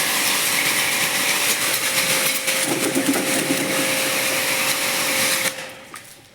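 A motor-driven machine running steadily with a loud hiss and a faint hum, cutting off suddenly about five and a half seconds in.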